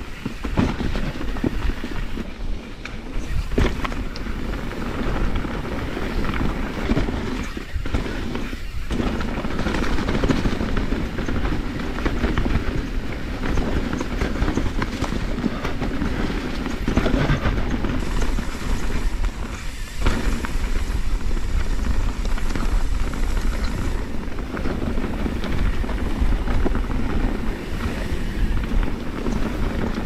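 Kona Process X mountain bike descending rocky dirt singletrack at speed: a continuous rumble and clatter of the tyres over dirt and rocks and the bike rattling.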